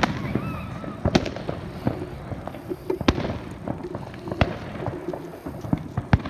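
Fireworks display: aerial shells bursting with sharp bangs every second or two, the strongest about a second in, at three seconds and past four seconds, with smaller pops and crackles in between.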